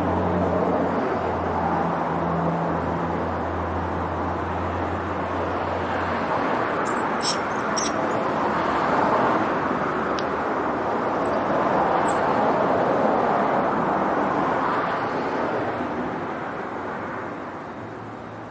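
Road traffic going past: a steady rush of tyres and engines that swells and fades, with an engine hum that stops about six seconds in. A few short faint clicks come around seven and eleven seconds in.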